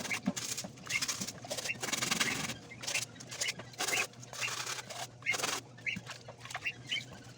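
Repeated short swishing bursts from hand-washing, roughly one a second, with small birds chirping in short calls between them.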